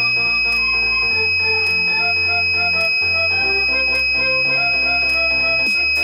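Small breadboard buzzer of a rain alarm sounding one unbroken high-pitched tone, set off by water drops on the rain sensor plate, over background music with a beat.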